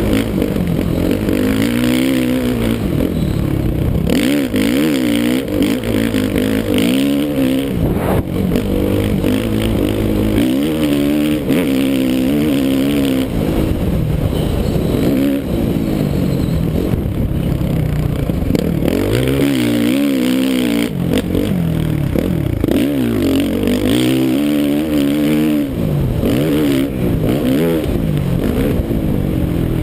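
2013 Suzuki RM-Z450's single-cylinder four-stroke motocross engine, heard on board while riding. It revs hard and falls off again and again, its pitch rising and dropping every second or two as the bike accelerates, shifts and backs off.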